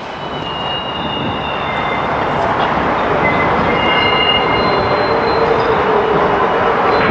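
A train running along the track: a steady rumble that grows louder over the first few seconds, with high-pitched wheel squeals coming and going.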